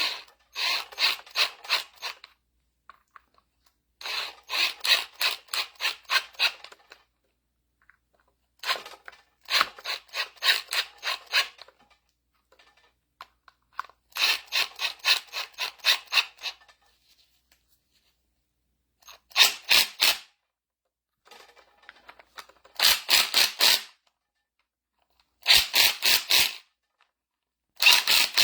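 Cheap impact wrench on an extension driving in the hydraulic pump's cover bolts, in eight bursts of rapid hammering. The later bursts are shorter as the bolts snug down. The tool has little torque, so the bolts are only run in and will be finished by hand with a wrench.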